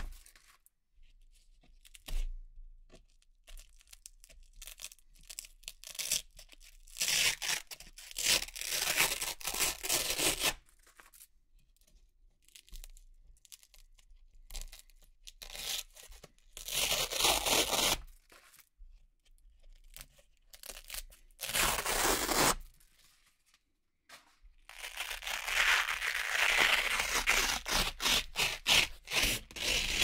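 Velcro hook-and-loop strips and round patches being peeled apart in four separate rips. The first three are short, and the last and longest runs through the final five or so seconds as a long strip comes off.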